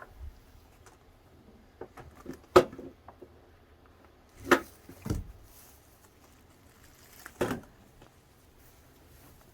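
A few scattered knocks and bumps, the sharpest about two and a half seconds in, with others near the middle and toward the end.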